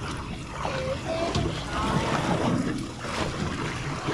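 Wind buffeting the microphone on open water, with sea water washing and splashing at the stern of a boat.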